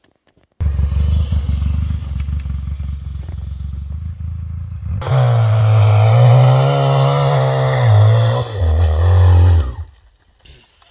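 Single-cylinder four-stroke quad ATV engine running, then revving louder about halfway through, its pitch rising and falling. The sound starts abruptly and cuts off suddenly near the end.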